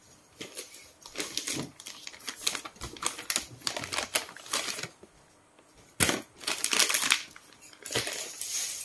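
Metal spoon and fork clinking and scraping against a ceramic bowl of fried instant noodles, in a run of irregular clicks. About six seconds in comes a louder, noisier rasp lasting about a second.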